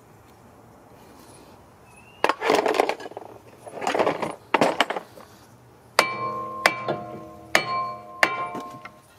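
A hammer strikes the rusted front brake rotor of a 2012 Hyundai Tucson four times, about once a second, to knock it loose from the hub. Each blow leaves a metallic ring. Before the blows come three short, rough bursts of noise.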